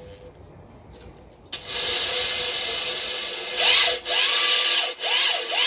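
Corded electric drill with a hole saw starting up about a second and a half in and grinding into a ceramic tile. Its motor pitch rises and falls several times, with two short breaks.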